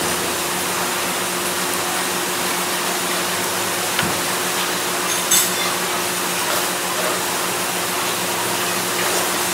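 Steady, dense hiss of heavy rain on a metal roof, with a faint low hum under it and a single light click about five seconds in.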